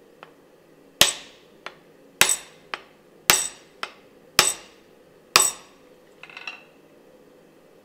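Hand hammer striking to seat a freshly forged hammer head on its wooden handle, the head resting on a steel swage block: five sharp, ringing blows about a second apart, most followed by a lighter knock. A brief light clatter follows near the end.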